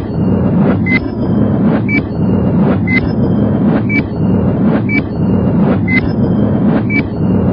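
Countdown sound effect: a short high beep with a tick once every second, over a loud steady low drone.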